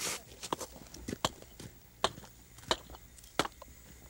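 Hatchet chopping into a walrus head: a series of sharp blows, about one every three-quarters of a second.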